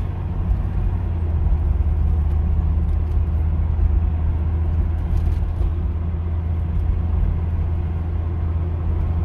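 Steady low drone of a car at highway cruising speed, heard from inside the cabin: engine hum and tyre and road noise.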